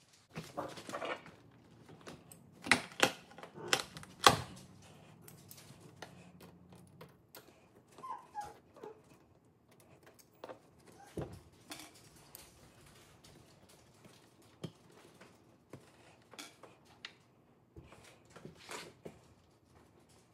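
Scattered clicks, snaps and knocks of pliers pulling staples and nails out of a wooden stair tread as a carpet runner is peeled back; the loudest knocks come a few seconds in, and a few more follow later.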